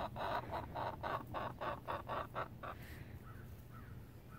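A hen clucking: a quick run of about ten short clucks, about four a second, growing fainter and stopping about three seconds in, followed by faint chirps from the flock.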